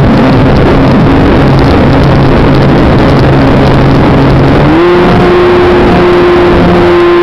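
Electric motors and propellers of a Twin Demon model plane, heard from its onboard camera under heavy wind rush that overloads the microphone. The steady propeller hum steps up in pitch about two-thirds of the way through as the plane pulls up into a climb.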